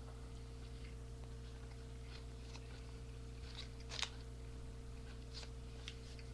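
Faint wet clicks of someone chewing, with one sharper click about four seconds in, over a steady electrical hum.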